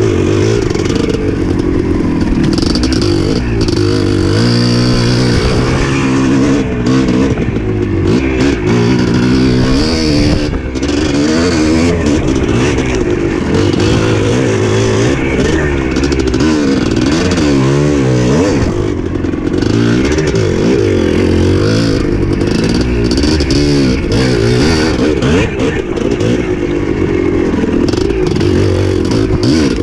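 Dirt bike engine running hard under load, its pitch rising and falling again and again as the throttle is worked.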